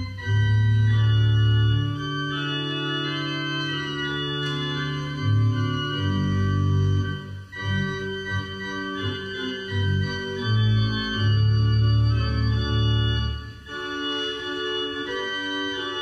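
Organ playing slow, held chords over deep bass notes that change every second or two, as a prelude.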